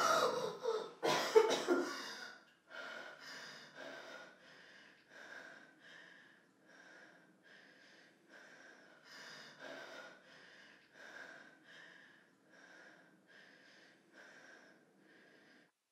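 A woman coughing and gasping for air, then panting in quick breaths, about three every two seconds, that grow fainter.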